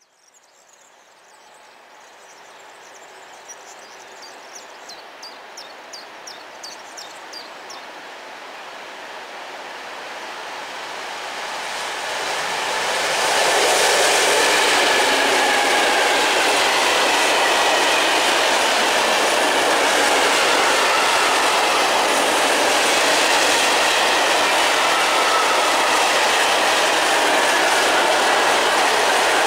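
M62 diesel locomotive's two-stroke V12 engine approaching and growing steadily louder until it passes about 13 seconds in. After it, a long train of open coal wagons rolls by, wheels clicking over rail joints with thin wheel squeal.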